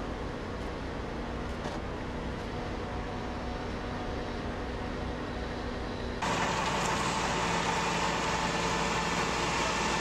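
Heavy-haul truck engine running with steady road noise as the multi-axle trailer rolls slowly. About six seconds in, the sound cuts abruptly to a louder, brighter truck engine and traffic noise.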